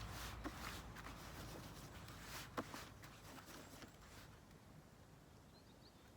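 Dry groundbait being mixed by hand in a bowl: faint rustling and scraping with a few soft clicks, a sharper one about two and a half seconds in, fading away in the second half.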